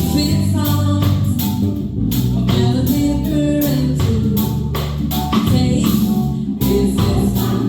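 Live band playing a reggae song: bass, keyboard and drum kit keeping a steady groove, with a woman singing lead.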